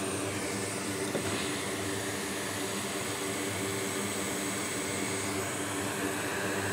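Steady whir of a fan or blower with a low hum, running evenly throughout.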